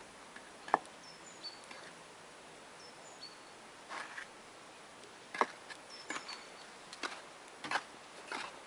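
Footsteps crunching in snow, about one step every three-quarters of a second from about four seconds in, after a single sharp click near the start. A small bird gives short high two-note chirps a few times.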